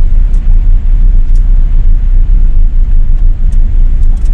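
Steady low rumble of a car driving slowly, heard from inside the cabin, with a few faint ticks.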